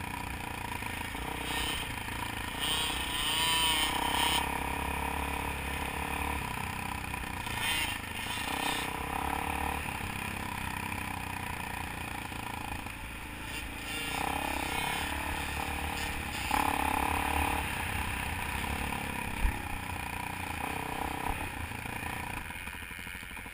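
Dirt bike engine running at varying throttle, its pitch rising and falling as it rides over a rough grass track. One sharp knock late on.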